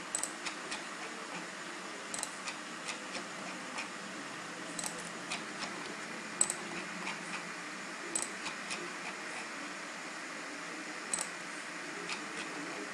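Computer mouse clicking at irregular intervals, short sharp clicks, some in quick pairs, over a steady hiss.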